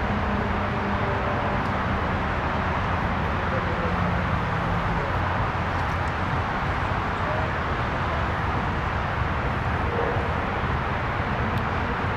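Steady outdoor background noise, a low rumble with hiss, with no distinct events.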